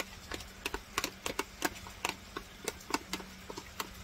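A spoon scraping and tapping soft-boiled eggs out of a plastic tub into a plastic bowl: irregular light clicks and taps, several a second.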